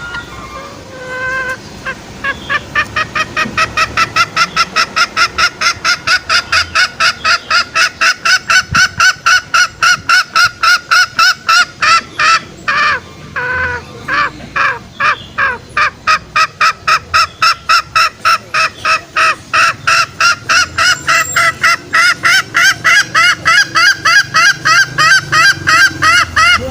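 Green junglefowl calls used as a lure: a long, even run of short pitched clucking calls, about four a second, with a brief break about halfway through.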